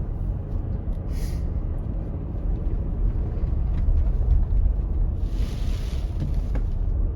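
Toyota RAV4 driving through deep snow, heard from inside the car: a steady low rumble of engine and tyres ploughing through it. A short hiss about a second in and a longer, louder hiss about five seconds in.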